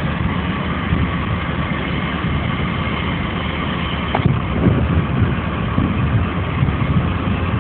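Heavy machinery diesel engine running steadily, with one short sharp click about four seconds in.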